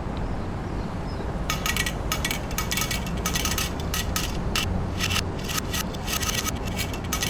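Marbles rolling along a rain-gutter and wooden-rail marble run: a steady rolling rumble, with a quick irregular run of clicks and clacks starting about a second and a half in.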